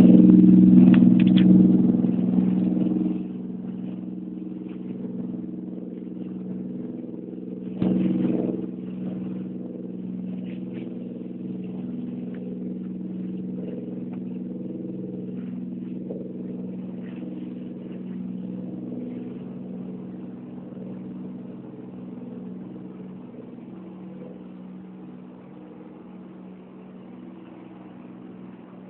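Boat engine running steadily with an even, droning hum. It is loudest for the first three seconds, then drops and fades slowly, with a brief louder swell about eight seconds in.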